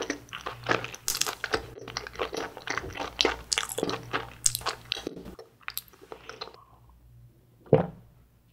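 Close-mic chewing of a melon-flavoured glutinous rice cake (mochi) that was frozen and then partly thawed, with dense wet, crunchy clicks for about five seconds before it quiets down. A single sharp, loud sound comes near the end.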